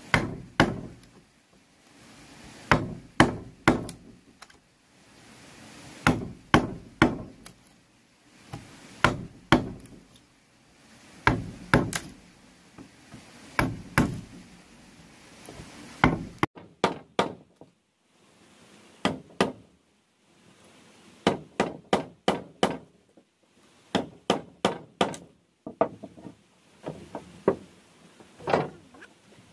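A wooden block used as a mallet striking a chisel, chopping into a wooden board: sharp knocks in quick clusters of two to four, repeated every second or two.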